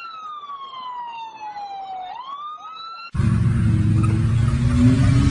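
An emergency-vehicle siren wails, its pitch sliding slowly down and then sweeping back up about two seconds in. About three seconds in it cuts off abruptly to a much louder, rough car engine running hard.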